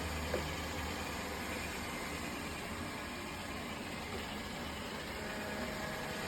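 A steady low hum with an even hiss over it, and one faint click about a third of a second in.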